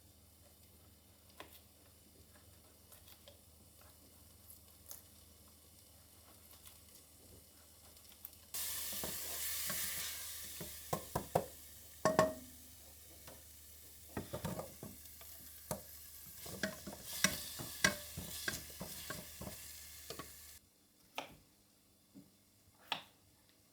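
Food sizzling in a pan, starting suddenly about a third of the way in, with quick clicks and taps of a utensil stirring against the pan. It cuts off abruptly near the end, leaving a few faint clicks.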